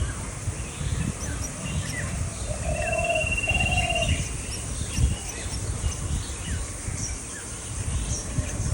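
Wild birds chirping in short scattered calls, with a rapid trill lasting about two seconds a few seconds in, over a steady low rumble.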